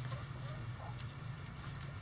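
Backyard chickens softly clucking and scratching on the coop floor, with a few faint ticks, over a steady low hum.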